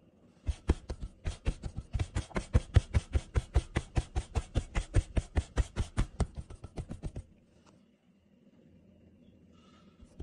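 Hands patting a thin round of paratha dough flat on a floured surface: a quick, even run of slaps, about six a second, that stops about seven seconds in.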